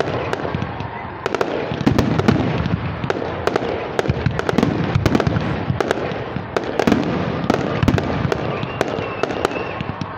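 Aerial fireworks display with shells bursting overhead one after another: a dense, irregular run of sharp bangs and crackles over a continuous rumble.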